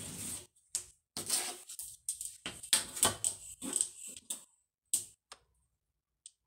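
Hands smoothing fabric and shifting a long ruler on a cutting table: a run of short rustling and scraping sounds with silent gaps between them, loudest around three seconds in.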